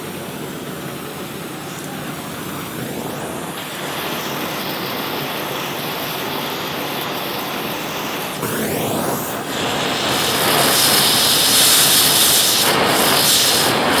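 Gas torch burning steadily, heating hardened steel to anneal (unharden) it so it can be drilled. It gets clearly louder about ten seconds in, after a short rising sweep.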